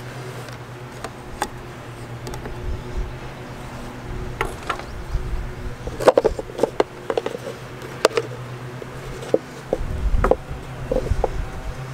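Scattered metallic clicks and knocks as the lid of a gallon paint can is worked off and set aside, with a bunch of quick clicks and taps about halfway through as a plastic paint cup and brush are handled.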